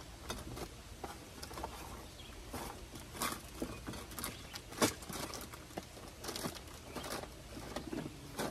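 Irregular clicks, knocks and rustles of items being shifted about while rummaging through a storage bin, with one sharper knock about halfway through.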